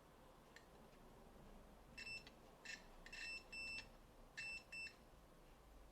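Multimeter continuity buzzer giving a run of about six short, faint, irregular beeps from about two seconds in, as the probes touch points on a circuit board that is being checked for shorts.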